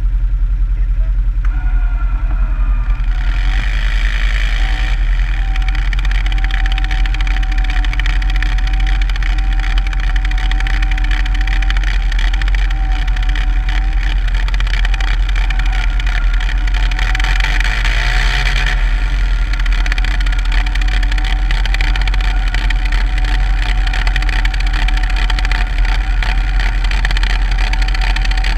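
Quad bike (ATV) engine running at a steady pace while driving through deep powder snow, a constant drone with a steady whine. It grows louder and brighter briefly about three seconds in and again around seventeen seconds in.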